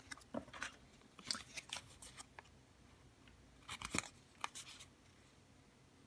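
Faint rustling and crinkling of a folded paper leaflet and plastic packaging being handled, in short scattered sounds with a small cluster about four seconds in.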